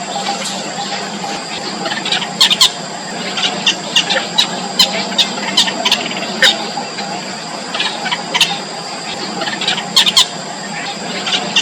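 Nestling birds giving short, high-pitched begging cheeps, repeated in irregular clusters throughout.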